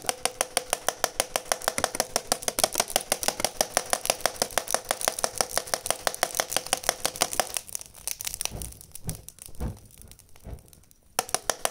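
Rapid, even mechanical ticking, about six or seven clicks a second over a steady hum, as from a small motor-driven mechanism. It stops about two-thirds of the way through, leaving a few soft knocks, and starts again near the end.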